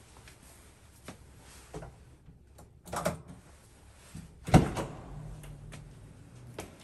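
Apartment front door being unlatched and pushed open, with one sharp clack about two-thirds of the way through. Lighter clicks and shoe scuffs on the tiled entryway come before and after it.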